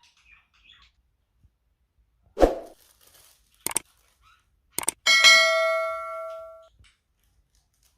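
A single metallic clang about five seconds in, ringing on with several steady tones that fade over about a second and a half. A short low sound and two sharp clicks come before it.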